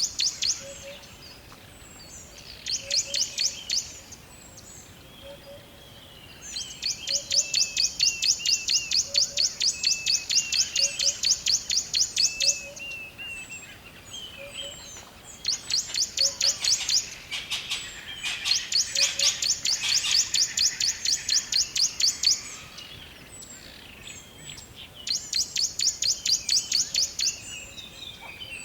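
Forest birds singing: fast, high, pulsed trills in repeated bouts of a few seconds each, with softer chirps between them and a faint low note repeating steadily underneath.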